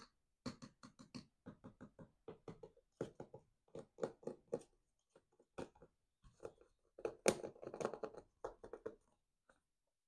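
Handling noise from a new Nike Mercurial Vapor 16 Elite football boot turned over in its tissue-lined box: a run of short crinkles, rustles and light taps, loudest about seven seconds in.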